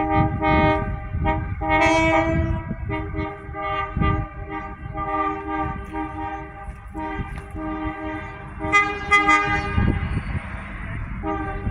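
Horns of Adelaide diesel railcars (Redhen and 3000/3100 class) sounding a series of blasts of one to three seconds each, with short breaks between, over a low rumble.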